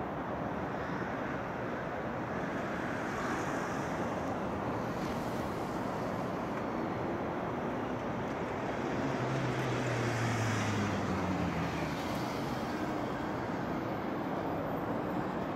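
Steady city traffic noise, with a low engine hum from a passing vehicle swelling about two-thirds of the way through.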